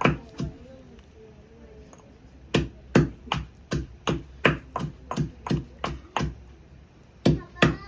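Knife chopping on a cutting board: one cut right at the start, then a steady run of cuts at about three a second from about two and a half seconds in to about six seconds, and two more near the end.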